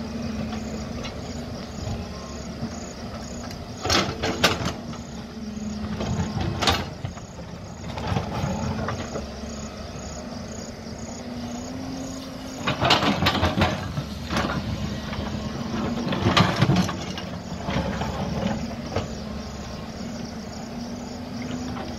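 JCB tracked excavator's diesel engine running steadily while the bucket digs into the hillside. Several loud scraping, clattering bursts of soil and rock stand out, about four seconds in, once more a couple of seconds later, and loudest around the middle and two-thirds of the way through.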